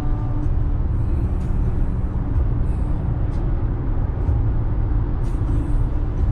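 Steady low rumble of road, tyre and engine noise inside a car's cabin at highway speed.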